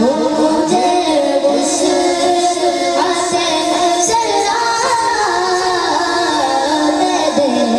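A boy singing a naat, a devotional Urdu poem, solo into a microphone over a sound system, in long held notes with wavering, gliding turns.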